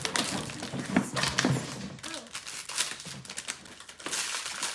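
Toy packaging being torn and pulled off, the wrapping crinkling and rustling, with irregular knocks as the hard plastic container is handled on the tabletop.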